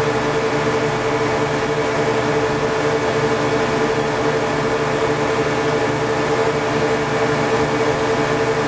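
Boat engine running steadily under way, a constant drone with an unchanging pitch.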